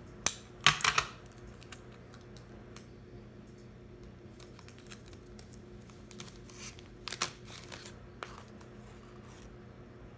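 Origami paper and clear adhesive tape being handled: short crisp rustles and clicks, the sharpest cluster about a second in and another around seven seconds, as tape is put on and folded paper legs are pressed and moved.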